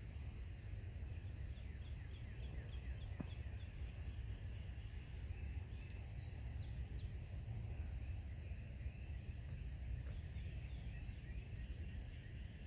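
Outdoor ambience: a steady low rumble, with small birds chirping in the background in quick runs of short falling notes near the start and again near the end.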